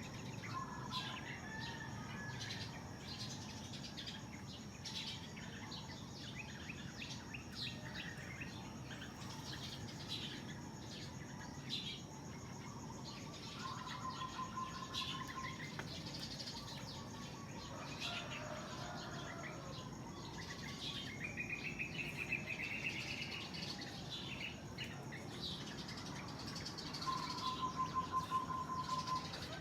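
Many small birds chirping and calling at dawn, short notes overlapping throughout. A rapid low trill sounds twice, the second time near the end and loudest, over a steady low background rumble.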